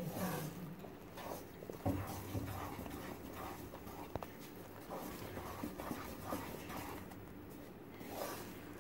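Spatula stirring and scraping a thick coconut mithai paste around a wok, in irregular soft scrapes and squelches; the paste is nearly done and starting to release its ghee.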